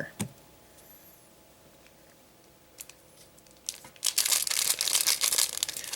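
Foil Digimon card booster pack wrapper crinkling and being torn open, starting about four seconds in after a nearly quiet stretch.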